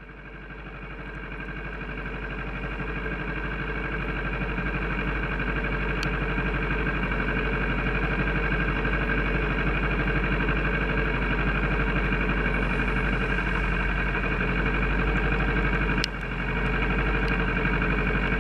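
Kawasaki ER6 parallel-twin motorcycle engine running steadily, fading in over the first few seconds, with a brief dip and click about 16 seconds in.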